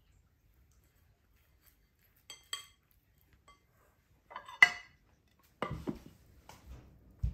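Glass and china clinking as bowls and a ceramic plate are handled: two light ringing clinks a couple of seconds in, a sharp ringing clink, the loudest sound, about four and a half seconds in, then soft knocks as a white plate is set down over a glass mixing bowl.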